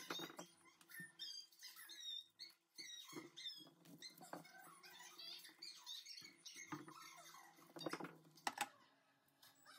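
Brussels sprouts being set down one by one on a wooden cutting board: faint light taps and rustling as they land and rub together, with a couple of louder knocks near the end.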